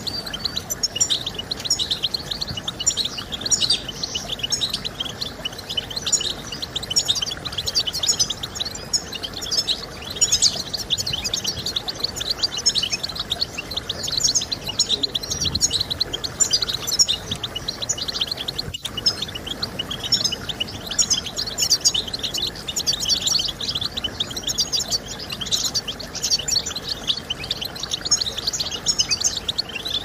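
European goldfinch singing: a continuous, rapid twittering song of quick chirps and trills.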